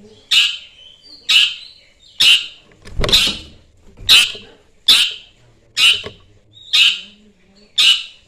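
Long-tailed shrike (cendet) giving short, harsh calls, about one a second, nine in all. It is a lure call used to provoke rival cendets into answering.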